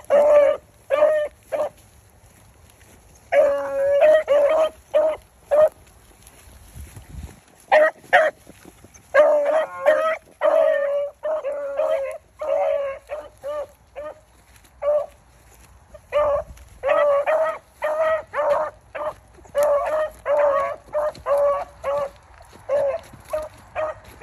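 Rabbit hounds baying on a rabbit's scent trail: bursts of repeated short barks mixed with longer drawn notes, with a couple of brief lulls. The baying is the sign that the hounds are on the track.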